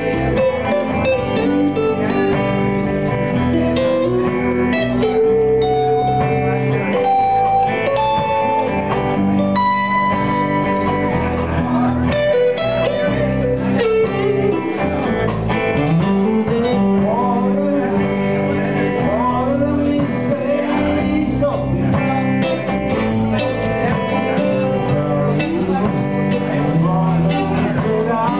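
Live blues band playing: electric guitars, electric bass and drum kit, with notes bending up and down in pitch.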